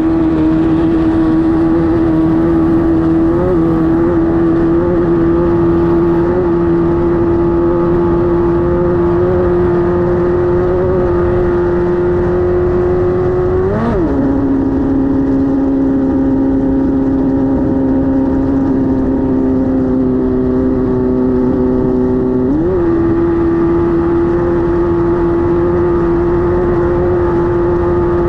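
Class 5-1600 off-road race car's air-cooled 1600cc VW flat-four running hard at a steady pitch. About halfway through the note flares briefly and drops to a lower steady pitch, and about eight seconds later it climbs back to the higher pitch.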